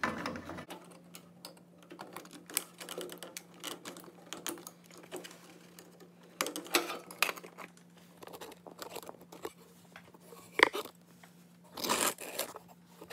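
Clicks, taps and rustling of plastic as the microwave's control panel is handled and fitted back into the chassis, with one sharp click about two-thirds of the way through, over a faint steady hum.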